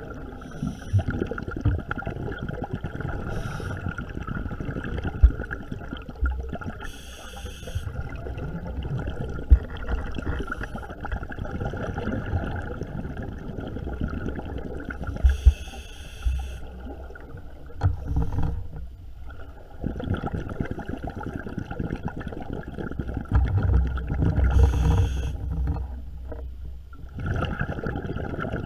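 Underwater sound picked up through a camera housing: a steady low rumble and hiss, with a short hissing burst of scuba exhaust bubbles three times, about eight to nine seconds apart, and a few dull knocks.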